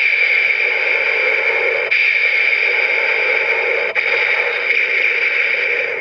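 A toy transformation belt's speaker playing a steady, static-like hiss that restarts in segments about every two seconds.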